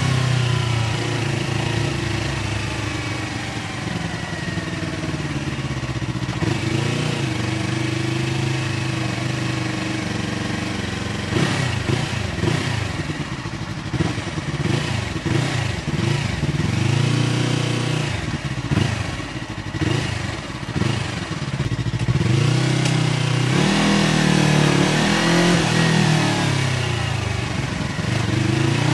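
Yamaha R3 parallel-twin engine through an SC Project aftermarket exhaust, heard while riding. The revs fall over the first few seconds, rise and fall in short, uneven jumps through the middle, then climb again as the bike accelerates near the end.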